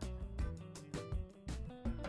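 Quiet background music with plucked, strummed guitar and a steady beat.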